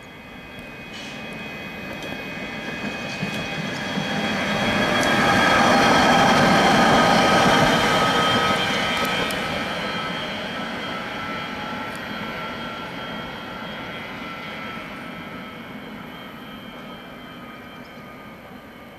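Tram passing on street rails: rolling rumble with a steady electric whine of several held tones, growing louder to a peak about six seconds in, then slowly fading as it moves away. A few faint clicks sound over it.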